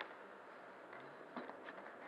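Inmotion V8 electric unicycle rolling over a concrete floor, heard through the action camera mounted on it: a steady low rolling noise with a few small clicks and knocks, the clearest about one and a half seconds in.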